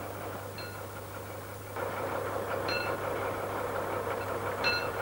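Hand-cranked level-crossing barrier winch being turned: a rattling grind of its gears comes in about two seconds in, with a short squeak about every two seconds, over a steady low hum.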